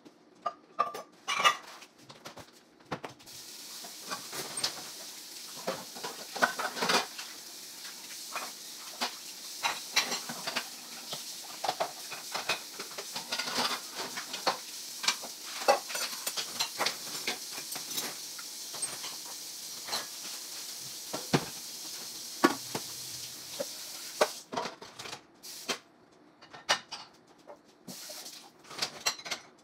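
Kitchen tap running into a stainless steel sink while dishes, glasses and cutlery clink as they are rinsed and handled. The water comes on about three seconds in and is shut off a few seconds before the end, leaving only the clinking.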